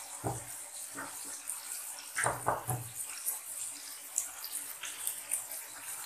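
Onion-tomato masala with whole spices and green chillies frying in oil in a wok: a steady sizzle with fine crackling and bubbling, and a few louder pops, a cluster of them a little over two seconds in.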